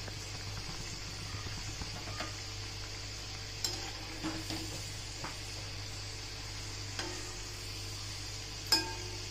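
Braided kadakani dough deep-frying in hot oil, a steady sizzle. A metal spoon clinks against the pan now and then, loudest near the end.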